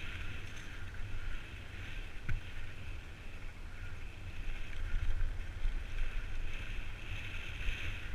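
Wind rumbling over a helmet-mounted camera microphone as a mountain bike rides fast along a dirt path, with a steady hiss of tyres and one sharp click a little over two seconds in.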